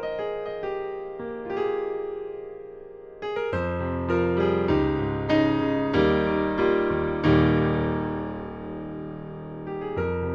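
Casio Privia PX-S7000 digital piano playing a factory keyboard sound, with struck notes that ring and decay. A thin melodic line turns to full chords with bass about three and a half seconds in, and the loudest chord comes near the middle.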